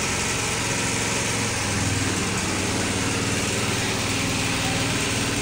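A machine running steadily: a constant low motor hum with a hiss over it.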